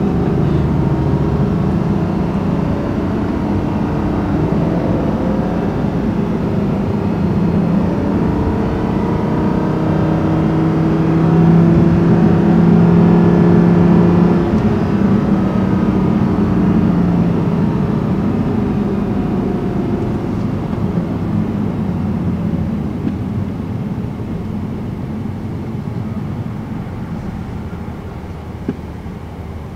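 Audi R8's naturally aspirated 5.2-litre V10 heard from inside the cabin, running at low speed in slow traffic with road noise underneath. The engine note swells a little for a few seconds around the middle, then slowly fades toward the end.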